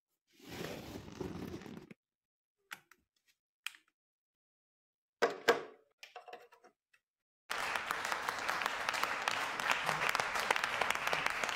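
Rustling as a folding light box is handled, a few sharp clicks a little past the middle, then from about two-thirds in a small group of people applauding.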